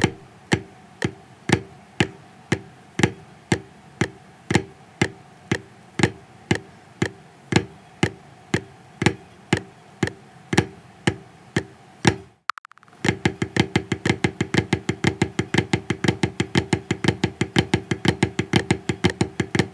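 Snare drum played with sticks: the Swiss Army triplet rudiment (flam, tap, tap) repeated slowly, each group opening with a louder stroke. About two-thirds of the way through it breaks off briefly, then runs on much faster and evenly.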